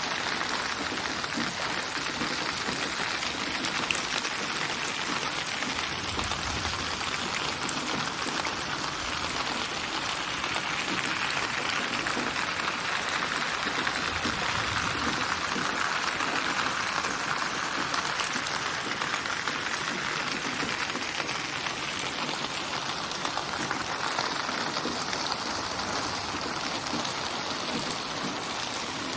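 Steady rain falling, an even wash of drops that swells slightly in the middle.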